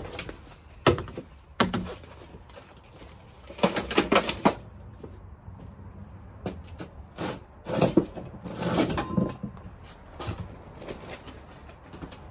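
Irregular knocks, bangs and clatters of objects being moved around and set down, with a quick run of bangs about four seconds in and another cluster around eight to nine seconds.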